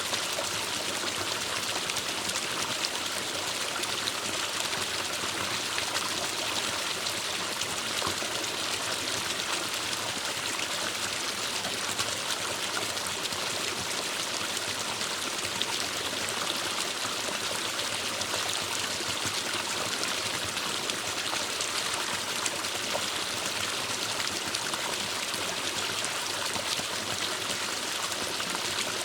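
Forest stream running steadily, water splashing and trickling over rocks in an even rushing hiss.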